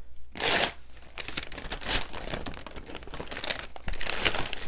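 Wrapping paper being torn and crumpled off a book, in a run of irregular rustles and crinkles.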